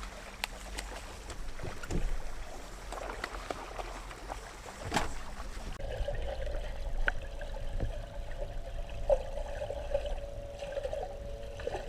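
Water splashing and trickling at the side of a small fishing boat, with a few sharp knocks on the hull. From about halfway through, a steady wavering hum joins in.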